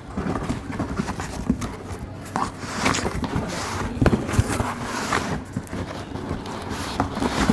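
Cardboard shipping box being opened by hand: flaps scraping and bending and packing being pulled out, an irregular rustling and crinkling with a few sharp knocks.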